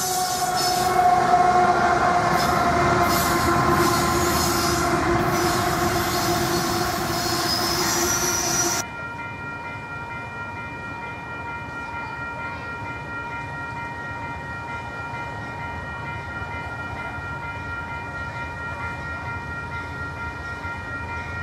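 Freight train of coal hopper cars rolling past, with the rumble and hiss of the cars and wavering wheel squeal. About nine seconds in it cuts off abruptly to a quieter scene holding a steady chord of high tones.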